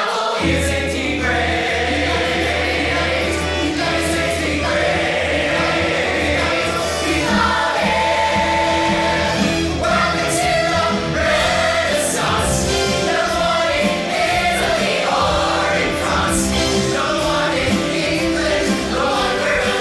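Musical-theatre ensemble number: a large cast singing an upbeat show tune in chorus, with a lead male voice, over a full pit orchestra with a steady driving bass line.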